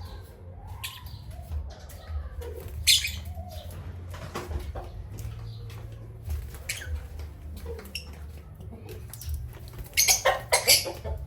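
Pet parrots moving about, with several loud bursts of wing flapping or rustling near the end and one about three seconds in, and soft short calls between them.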